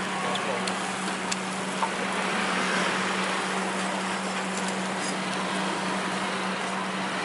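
Skewered chicken grilling over charcoal: a steady sizzling hiss with a few faint crackles, over a constant low hum.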